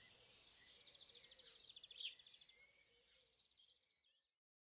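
Faint birds chirping, as a nature-sound background, fading out and cutting to silence about four seconds in.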